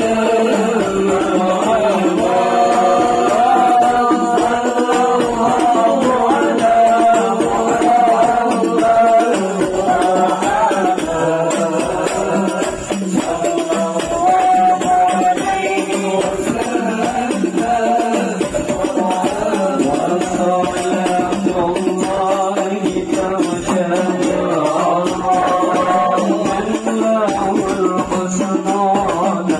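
Live amplified sholawat: voices singing a devotional melody over hadrah percussion, with hand-struck frame drums, a jingling tambourine and a bass drum keeping a steady beat.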